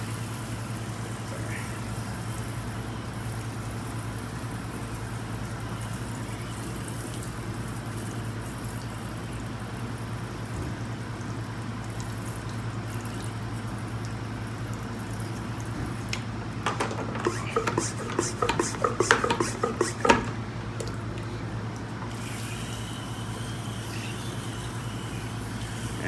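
Water from a hose spray wand rinsing caked-on dust out of a refrigeration condenser coil's fins, a steady hiss with a low hum underneath. About two-thirds of the way through comes a spell of irregular knocks and splashes.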